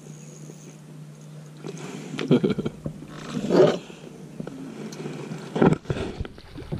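A hooked crappie jumping and thrashing at the surface beside the boat, with several loud splashes, the loudest about three and a half seconds in.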